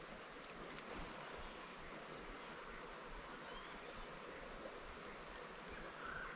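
Quiet creekside ambience: a steady soft hiss with scattered faint, short, high chirps.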